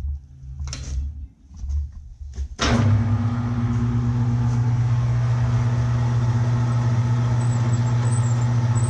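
A few light knocks, then about two and a half seconds in a metal lathe starts up and runs at a low speed with a steady hum.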